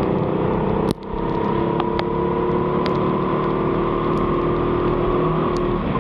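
Go-kart engine running steadily under throttle, with tyre hiss on a wet track; it dips sharply for an instant about a second in and comes straight back. A few sharp ticks sound over it.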